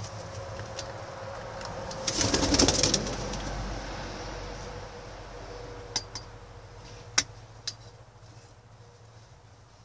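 Homing pigeons cooing in their loft, with a louder noisy burst about two seconds in and a few sharp clicks later on.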